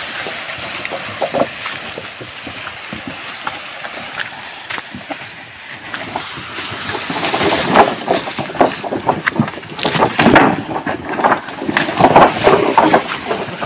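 A bundle of wooden poles dragged over a dirt and leaf-litter trail by a carabao, scraping and rustling. About halfway through it gets louder and more irregular, with many knocks and clatters.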